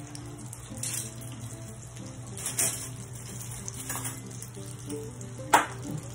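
Soft background music over a steady low hum, with a few brief swishes and one sharp tap about five and a half seconds in from handling at a glass mixing bowl.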